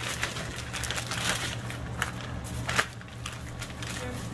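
Plastic freezer bag crinkling and crackling as it is handled, in irregular rustles and clicks, over a steady low hum.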